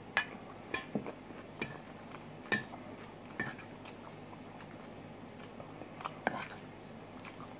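Chewing on a mouthful of salad, with scattered sharp clicks and clinks as a metal fork taps and scrapes in a stainless steel bowl.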